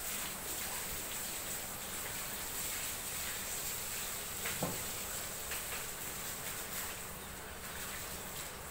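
Steady high-pitched insect buzzing over outdoor background hiss, with one short knock about halfway through.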